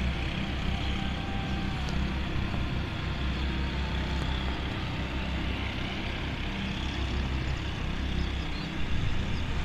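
Steady low rumble with an even hiss above it: outdoor ambience.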